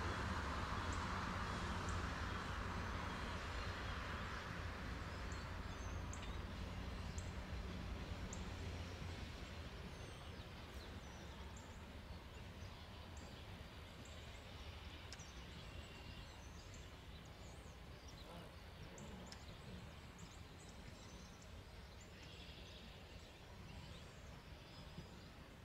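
Baldwin switcher diesel locomotive's engine running and fading away over about ten seconds as it moves off, leaving birds chirping over quiet rural ambience.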